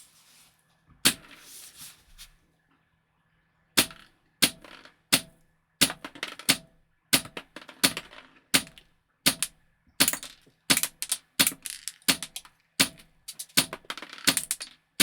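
Wolverine MTW-9 HPA airsoft rifle, regulated to 100 psi, firing a long string of single shots, roughly two a second, each a sharp crack, beginning a few seconds in after some faint handling noise.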